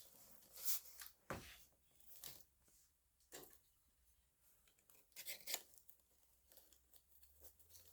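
Cardboard box and packaging being opened and handled: scattered short tearing and crinkling rustles with a few sharp knocks, faint between them.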